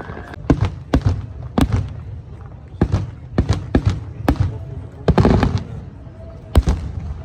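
An irregular string of about a dozen loud, sharp cracks, with a quick burst of them about five seconds in.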